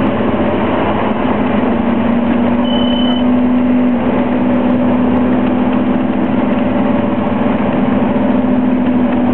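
Scania OmniCity double-decker bus's diesel engine running steadily with road noise while the bus is under way, heard from inside the passenger saloon. A brief high beep sounds about three seconds in.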